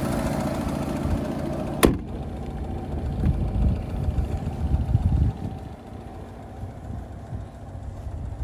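Lada Niva 1.7i four-cylinder petrol engine idling with the bonnet up, then the bonnet slammed shut just under two seconds in with one sharp bang. The engine idles on, now muffled under the closed bonnet, with a few low thuds.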